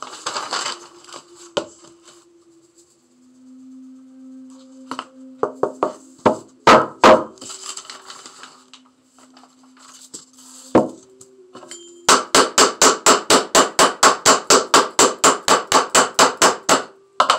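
Sand-painting board held upright and tapped rapidly by hand, about five even knocks a second for some five seconds, to shake loose sand off the painting. Before it come paper rustling and a few separate knocks.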